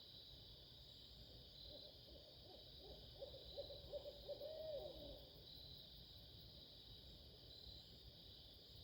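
Faint barred owl hooting: a run of quick hoots lasting about three seconds, ending in a drawn-out note that slurs downward.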